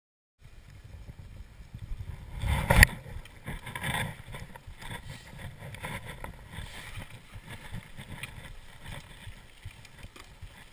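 Mountain bike riding down a rough dirt trail, picked up by a GoPro on the rider: tyre rumble, wind on the microphone, and a steady patter of knocks and rattles from the bike and the camera mount. A heavy jolt, about two and a half seconds in, is the loudest moment, with a smaller one a second later.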